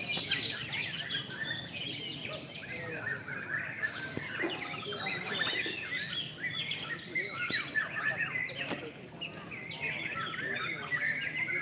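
Many songbirds singing at once: a dense, continuous tangle of overlapping chirps, whistles and trills.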